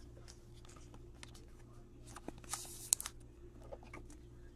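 A trading card being handled and slid into a clear plastic sleeve: faint rustling and light clicks, with a brief scratchy swish of card on plastic a little before the 3-second mark, over a steady low hum.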